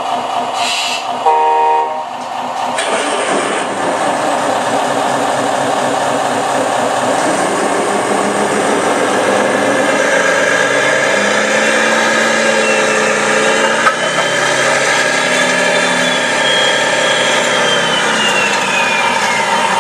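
Radio-controlled construction machines running on their electric motors and hydraulics, a steady mechanical whir. A short horn blast sounds about a second and a half in, and a high motor whine rises and then falls in pitch in the second half.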